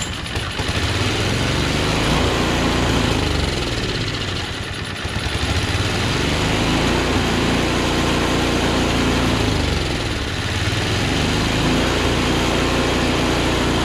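Craftsman track-drive snowblower engine pull-started on the recoil starter, catching at once on full choke after priming, then running steadily. Its speed dips briefly twice, about four seconds in and again near ten seconds.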